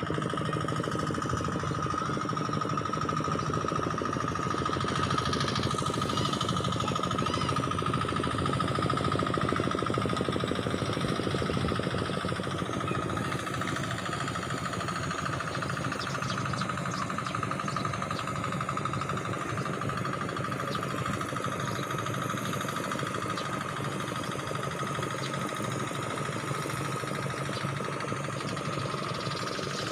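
An engine running steadily with a rapid knocking beat, and a steady high tone over it.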